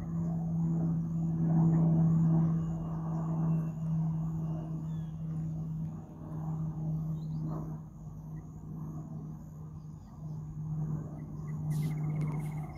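Steady droning hum of a Republic of Singapore Air Force aircraft flying past at a distance, fading over several seconds. A brief chirping trill comes near the end.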